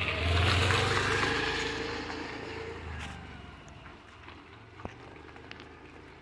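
A motor vehicle's engine passing close by, loudest about half a second in and then fading away over the next few seconds. A few faint clicks follow.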